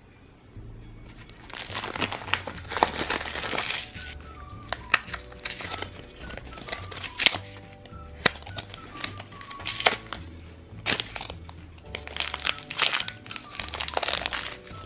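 Crinkling of plastic toy packaging being opened and handled, in bursts with sharp clicks in between, over light background music.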